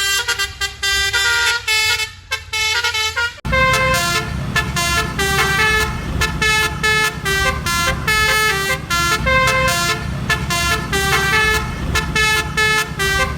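Cartoon vehicle horns honking out a tune in short stepped notes, then about three and a half seconds in a switch to a louder, busier horn melody over a steady beat.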